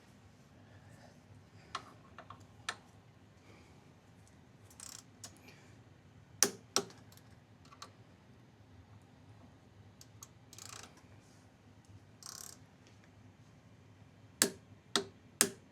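Sharp clicks from a click-type torque wrench reaching its set torque of 45 Nm on the Ducati Diavel's front brake caliper bolts: two clicks about six seconds in and three quick ones near the end, with fainter tool handling and short scuffs between.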